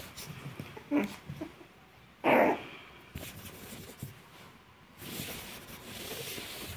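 Chihuahua puppy playing with a blanket: a short squeaky sound about a second in, then a louder short bark just after two seconds. Near the end comes the rustle of fabric as the puppy thrashes in the bedding.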